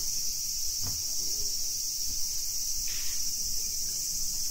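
Steady high-pitched chorus of insects buzzing in the garden trees, with a faint knock about a second in.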